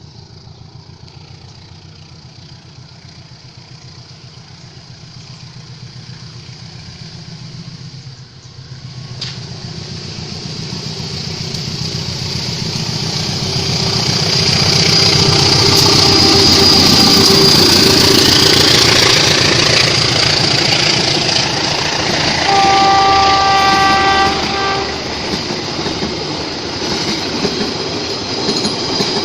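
A train approaching and passing, its running noise growing steadily louder through the first half. Around two thirds of the way in the locomotive sounds one horn blast lasting about two and a half seconds.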